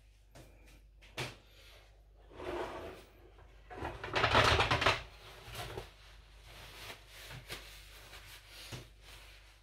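Scattered knocks and clicks of kitchen things being handled, with a louder burst of clattering noise about four seconds in.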